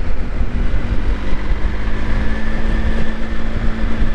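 Wind rumbling on the microphone with road noise while riding along, and a steady hum that comes in about a second in.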